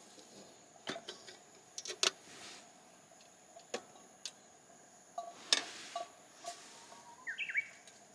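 Scattered light clicks and knocks, spaced irregularly, over a faint steady hiss, with a short burst of quick chirping calls, likely a bird, near the end.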